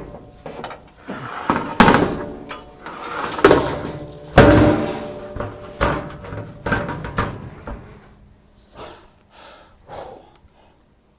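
Sheet-metal banging and clanking on top of a steel grain bin, a string of knocks with a ringing tone after the heaviest ones. The loudest bang comes about four and a half seconds in, and lighter clatters die away near the end.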